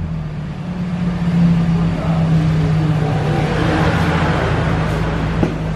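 Toyota Corolla's four-cylinder engine idling through an aftermarket NDK racing muffler, a low, steady exhaust note.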